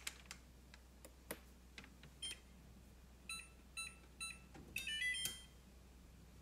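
Range oven's electronic control panel beeping as it is set: a few faint taps, then three short beeps about half a second apart, followed by a brief chime of several tones about five seconds in.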